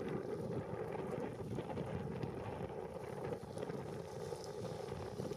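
Steady rush of river rapids, with wind buffeting the microphone.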